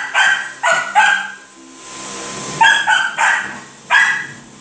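A pet's short, high-pitched yapping calls in quick runs: three close together, a pause of about a second, three more, then a single call near the end.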